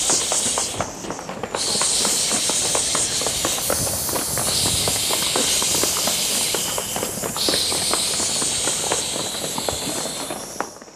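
Audience applauding steadily, a dense patter of many hands clapping that fades out about a second before the end.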